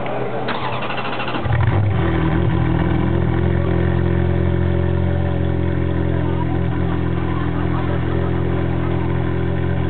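Ferrari F430 Challenge race car's V8 idling at the exhaust. In the first two seconds a short rasping burst and a step up in level, then a steady idle.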